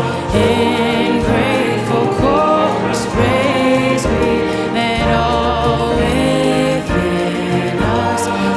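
Choir singing a sacred Christmas piece over instrumental accompaniment, with a few sharp percussion hits.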